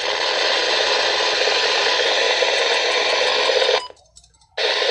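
Loud, steady hiss of static from a television speaker. It cuts out for under a second near the end, then comes back.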